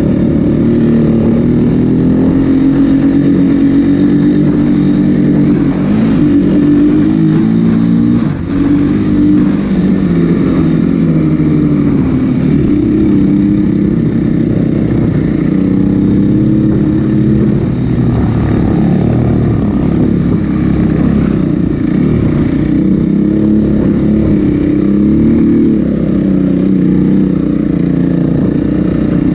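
Snowbike (a dirt bike fitted with a snow track kit) engine running under load as it climbs through snow, its pitch rising and falling as the throttle is worked, with a brief dip about eight seconds in.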